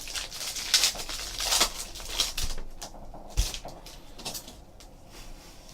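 Crinkling and rustling of a trading-card pack's wrapper being torn open, with cards handled. There is a run of short crackles, louder in the first half.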